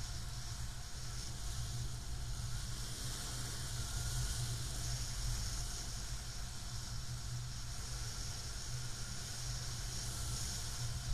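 Steady wind noise from the airflow over the camera microphone in paraglider flight: a low rumble with an even hiss above it.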